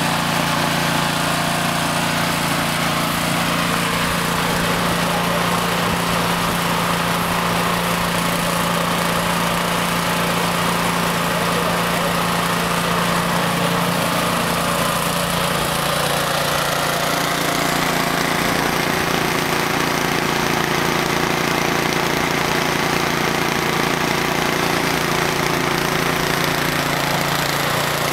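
Two-stage snowblower engine running steadily under load as the machine is pushed along, with the whir of its auger and impeller.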